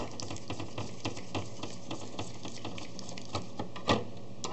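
Hand screwdriver turning a small screw into the scanner carriage of a Sharp AL copier: a run of small, irregular clicks and ticks, with a sharper click at the start and another near the end.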